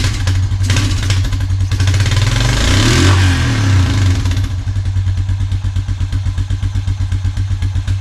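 Old Honda quad (ATV) engine running after being brought back from years of sitting, revved up and back down once about two to three seconds in, then settling to a steady, evenly pulsing idle.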